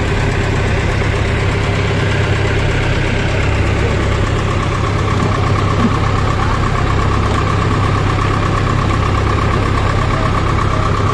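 A wooden fishing boat's engine running steadily as the boat moves through calm sea, with the wash of water along the hull.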